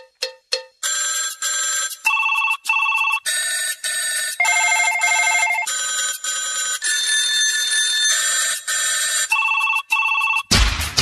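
Music intro: a few quick short notes, then an electronic tune of bell-like notes played in pairs, stepping through a melody. The full song with bass comes in near the end.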